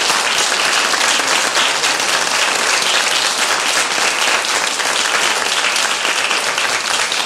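Audience applauding, a dense, steady clapping that holds at the same level throughout.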